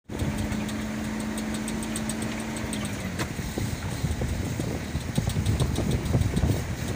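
A vehicle's engine and road noise heard from inside the moving cabin. A steady engine hum drops in pitch about three seconds in, and after that irregular low knocks and rattles run over the noise.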